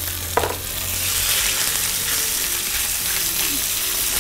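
Garlic and strips of chicken breast sizzling in oil in a frying pan as they are stirred. The sizzle grows louder about a second in, and there is one short knock near the start.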